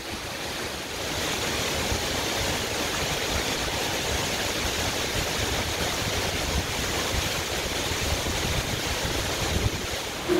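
Heavy rain pouring steadily onto a street and pavement, a dense even hiss that swells about a second in.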